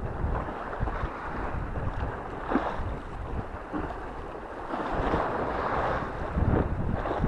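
Wind buffeting the microphone over the wash of Black Sea waves, a steady rushing noise that swells briefly about two and a half seconds in and again for about a second near the five-second mark.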